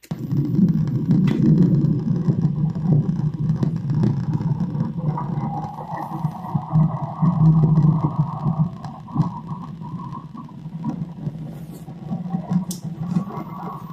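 Playback of a recorded low, fluctuating rumble like engine or aircraft noise, starting abruptly. A higher drone joins about five seconds in. The recordist takes it for a transmitted harassment signal hidden in plane noise.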